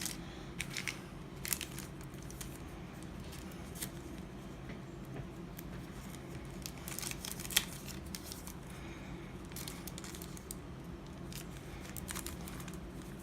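Foil wrappers of Yu-Gi-Oh! booster packs and their cards being handled: irregular crinkling and crackling with a few sharper clicks, the loudest about seven and a half seconds in, over a steady low hum.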